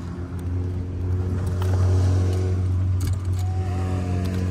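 Sailboat's engine running steadily at low revs, getting louder about a second in, with a few light knocks over it.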